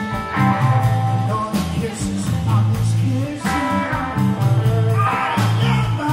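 Live blues band playing: electric guitars, bass and drums keep a steady groove while a male singer sings into the microphone.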